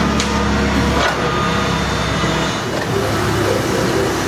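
FICEP CNC Angle Master hydraulic angle-iron punching line running as it feeds and punches the material. Its steady hum is broken by two sharp metallic knocks, one near the start and one about a second in, after which the noise turns rougher.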